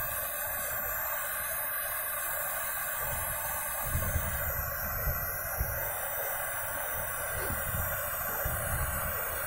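Gas welding torch flame hissing steadily as it heats a brazed refrigerant pipe joint on an air-conditioner compressor to unsolder it, with a few soft knocks from handling partway through.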